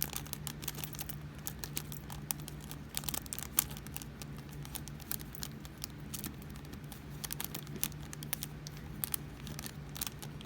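Scattered light clicks and rattles with plastic crinkling: small bags of resin diamond-painting drills being handled and the drills tipped into a plastic storage container. A steady low hum runs underneath.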